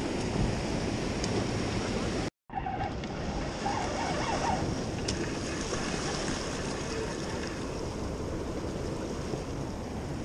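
Sea waves washing and breaking against the rocks of a jetty, with wind buffeting the microphone. The sound cuts out completely for a moment about two seconds in.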